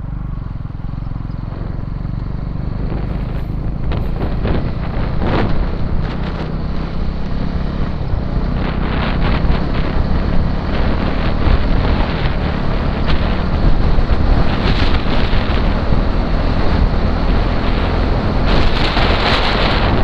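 Motorcycle riding at speed, its engine running under heavy wind buffeting on the microphone that grows louder over the first half.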